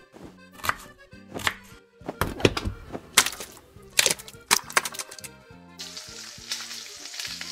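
Kitchen knife chopping on a board, a sharp chop every half second to a second, then food sizzling in a frying pan from about six seconds in, over background music.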